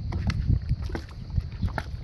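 A dog pawing at the floating ball in the drinking hole of a plastic livestock ball waterer: several irregular sharp knocks with water splashing.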